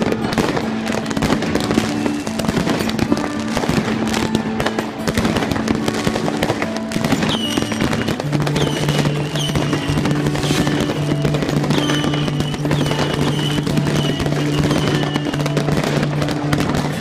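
Dense, continuous crackling and banging of many fireworks and firecrackers going off at once. From about halfway through, a run of shrill whistling fireworks can be heard. Music with long held low notes plays underneath.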